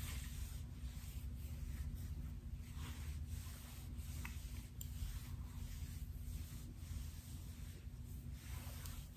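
Long acrylic fingernails scratching through short hair on a scalp: a soft, dry rasping in repeated strokes.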